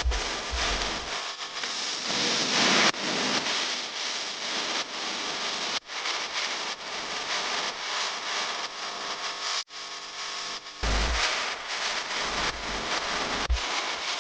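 Combine harvester running in a rice field, a steady mechanical hiss and rumble, with wind buffeting the microphone. The sound drops out abruptly twice where the footage is cut.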